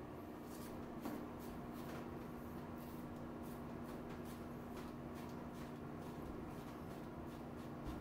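Multi-blade cartridge razor scraping through a week's stubble on the neck under shaving foam: quick repeated rasping strokes, about two a second. A steady low hum runs underneath.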